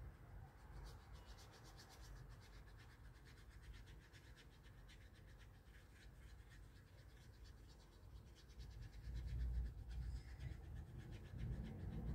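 Faint scratching and rubbing of a watercolour paintbrush working paint together in short strokes.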